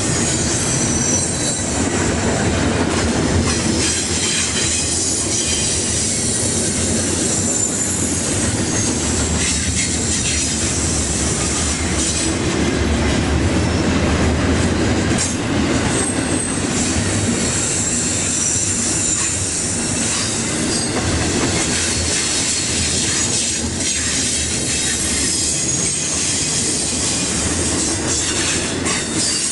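Double-stack intermodal well cars rolling past: a steady rumble of steel wheels on rail, with high-pitched wheel squeal rising and fading over it.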